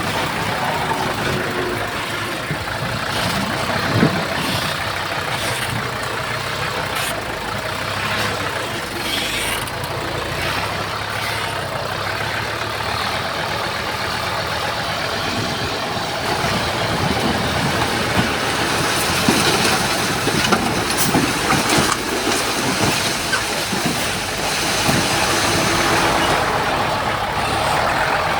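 Heavy diesel earthmoving machinery running steadily, with a sharp knock about four seconds in and scattered clanks in the second half.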